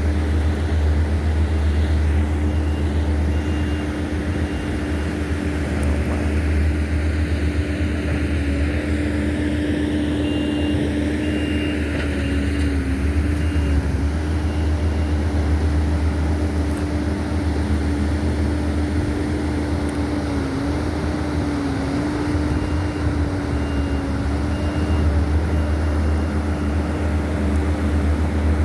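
Steady engine and road noise inside a moving car's cabin: a low drone with a constant hum over it.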